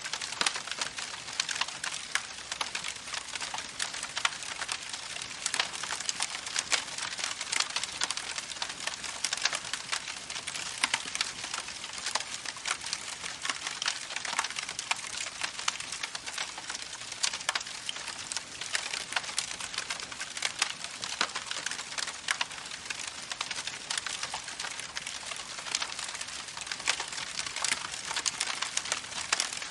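Wood fire crackling steadily, with dense, irregular snaps and pops from burning logs.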